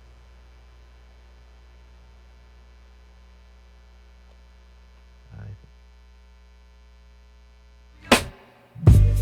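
Steady electrical mains hum on a silent AM radio broadcast feed (dead air). A brief faint sound comes about halfway through, a short loud burst just after eight seconds, and music starts near the end.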